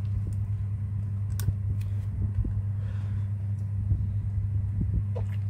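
A steady low machine hum that cuts off abruptly near the end, with light clicks of metal tweezers and a small screwdriver against the opened phone.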